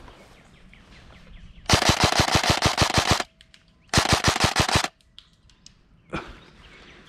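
Airsoft electric gun firing two full-auto bursts of rapid shots: a longer burst of about a second and a half, a short pause, then a burst of about a second.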